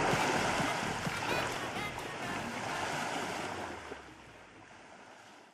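Wind and choppy lake water lapping, an even rushing wash that fades out near the end.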